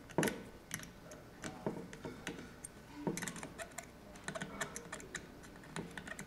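Irregular light clicks and taps of a camera gimbal cage's side tubes and clamps being handled as a tube clamp is fitted and fastened, with a few louder knocks about a quarter second in and about three seconds in.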